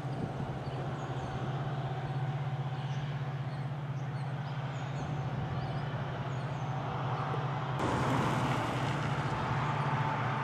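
Street traffic noise: a steady low engine hum under a haze of road noise. About eight seconds in, a broader rush of noise comes in and it gets louder.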